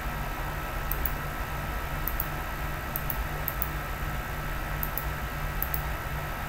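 Computer mouse clicking, about six quick pairs of faint clicks spread through, over a steady low hum and hiss.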